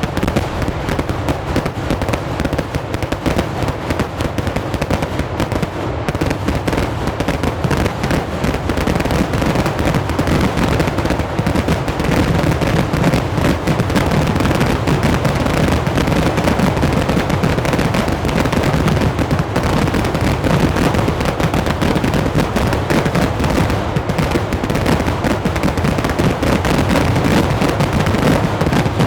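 Fireworks: a dense, unbroken barrage of firecracker bangs, many a second, running together with no pause.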